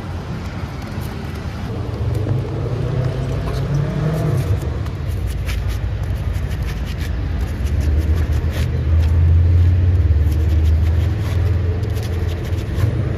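A motor vehicle's engine running close by: a low rumble that swells to its loudest about two-thirds of the way through. Faint clicks are scattered over it.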